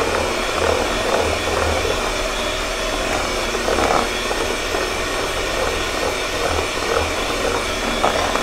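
Electric hand mixer running steadily, its twin beaters whipping butter, sugar and eggs in a plastic bowl.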